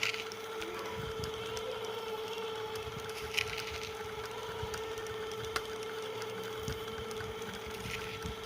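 Concrete mixer running: a steady motor hum with the drum rattling and knocking irregularly as it turns, and a few sharper clicks.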